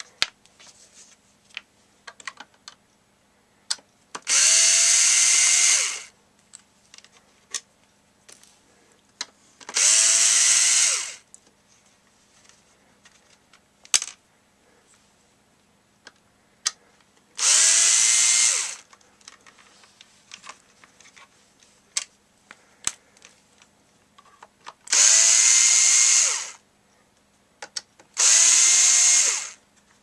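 Cordless drill/driver backing screws out of a radio's front panel: five short runs of about a second and a half each, the motor whine rising as it spins up and then holding, with small clicks of screws and handling in between.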